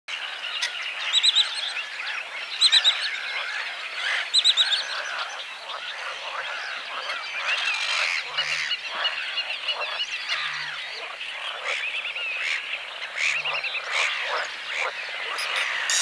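A chorus of many frogs calling over one another in a wetland. Three loud, rapid trills stand out in the first five seconds, each about a second and a half after the last.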